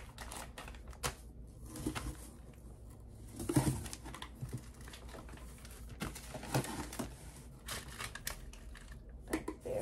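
Plastic-wrapped packages crinkling and rustling as they are handled and packed into a storage bin, with scattered light knocks of containers being set down.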